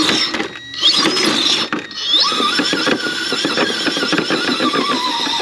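RC scale rock crawler's electric motor and geared drivetrain whining under load as it crawls over rocks, the pitch rising and falling with the throttle. The whine stops and restarts twice in the first two seconds, then runs on more steadily over a fast rattle of small clicks.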